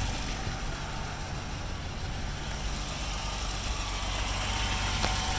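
BMW 633 CSi's 3.2-litre M30 straight-six idling steadily and smoothly shortly after a cold start.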